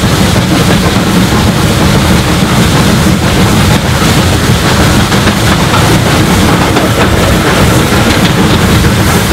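Three-cylinder Merchant Navy class Pacific steam locomotive working hard up a 1-in-60 gradient. Its exhaust beats come so fast that they run together into a loud, continuous pulsing, heard through the train's front window with rail noise and some wind.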